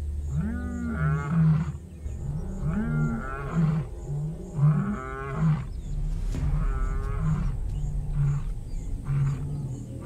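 Lion roaring: four long calls that rise and fall in pitch, about two seconds apart, followed by a string of shorter, lower grunts.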